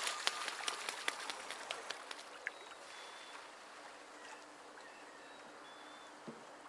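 Cormorant taking off from the water, its feet and wings slapping the surface in a quick series of splashes over the first two seconds or so, then fading to a faint steady water hiss.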